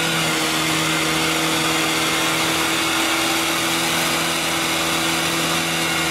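Off-road 4x4's engine held at steady high revs while its oversized mud tyres spin and dig in deep mud, churning and spraying it.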